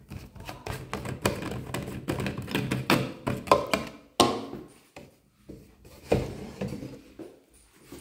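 A black plastic cap being unscrewed from a liquid detergent bottle and handled: irregular plastic clicks and knocks, the sharpest about four seconds in and again about six seconds in.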